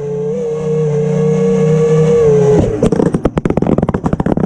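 FPV quadcopter's brushless motors spinning up to a steady whine on the ground. About two and a half seconds in the pitch drops and the whine breaks into a fast, irregular clattering.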